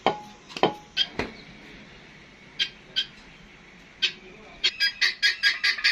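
Pizza dough slapped and patted between the hands in a few sharp smacks. About two-thirds in, a bird starts a fast run of short repeated chirps, about six a second.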